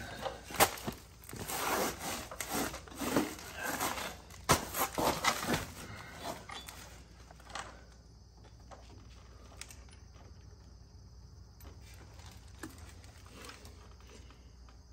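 Handling noises of hand and tools working at the front axle under a leaf spring: a run of irregular small knocks, taps and scrapes. After about seven seconds it goes still but for a faint steady high hum.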